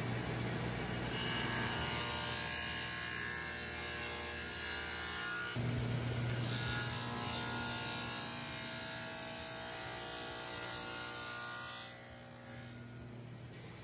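Table saw running with its motor humming steadily while its blade cuts a small piece of wood fed along the fence. The sound changes abruptly a few times and drops in level near the end.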